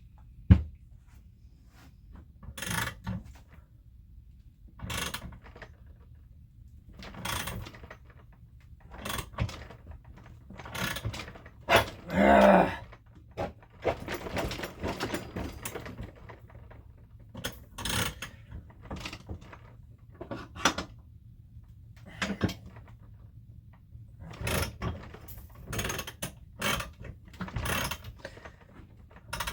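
Thread tap being forced by hand into a cylinder's spark plug hole, cutting new threads: irregular grinding, clicking strokes every second or two, one longer and louder about twelve seconds in. The cutting is very stiff.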